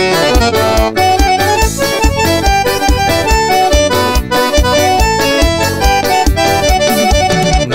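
Forró instrumental break: an accordion plays a melody over a steady, regular low drum-and-bass beat.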